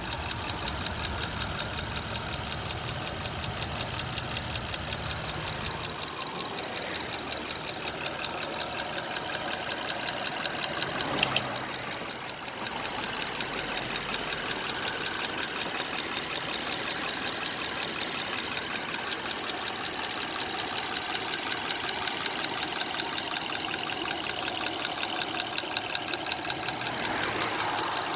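2005 Honda Odyssey's 3.5-litre V6 idling steadily with a slight, fast, even ticking from the engine.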